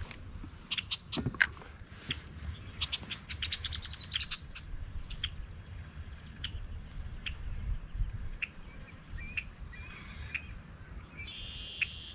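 Birds chirping, with many short high calls scattered throughout and a brief trill near the end, over a low steady background rumble.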